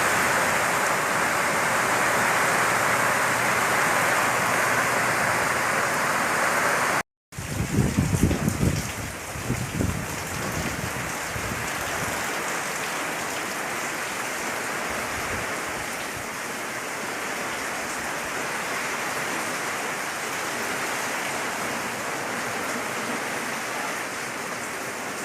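Heavy rain pouring steadily. About seven seconds in the sound cuts out for an instant and comes back with a few seconds of low rumbling gusts, then settles into a steady, slightly softer downpour.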